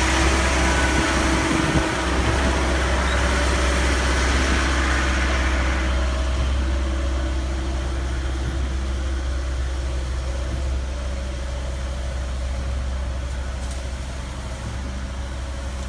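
Heavy diesel truck engine running steadily, the kind that drives a concrete pump or a cement mixer truck. It is loudest for the first several seconds, then fades gradually.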